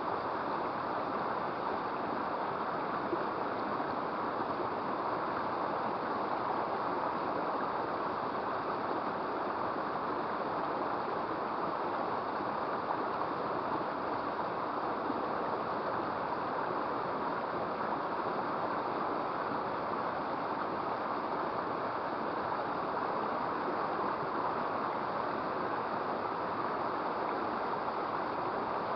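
Steady rush of flowing water in a small river, an even noise without breaks or changes.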